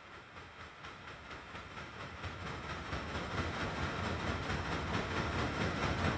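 Train approaching on its rails, the rumble and rattle of its wheels growing steadily louder.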